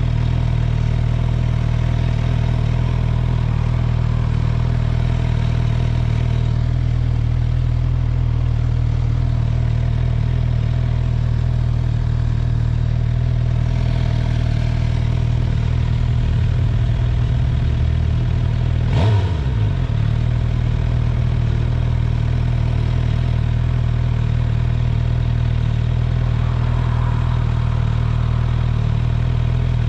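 2019 Suzuki GSX-R750's inline-four engine idling steadily, with one short sharp sound falling in pitch about two-thirds of the way in.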